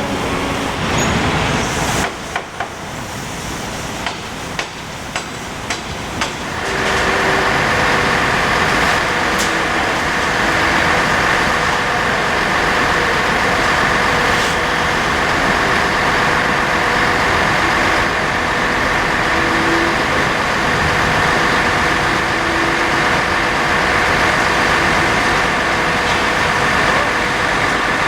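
A few sharp metallic knocks, then from about seven seconds in a heavy diesel vehicle engine running steadily close by, with a steady mechanical whine over it.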